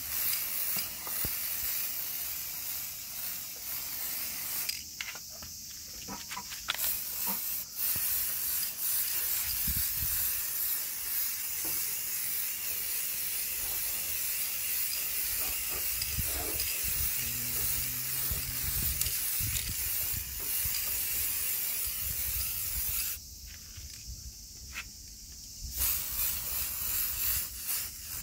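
Holts clear-coat aerosol spray can hissing in long passes over a car body panel, with its nozzle turned for a wide horizontal fan to lay a thin second coat. The hiss breaks off twice, briefly, between passes.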